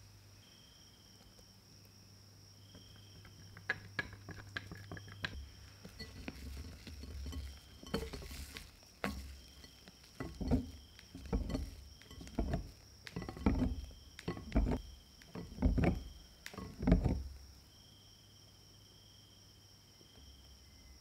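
Wire whisk folding egg yolk into whipped egg whites in a glass bowl. A few light clicks of metal on glass come first, then a run of soft wet strokes about one a second, growing a little louder before they stop.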